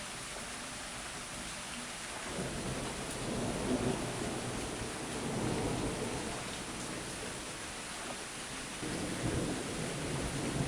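Steady downpour of rain hissing throughout, with rolling thunder that rumbles up about two seconds in, fades, and swells again near the end.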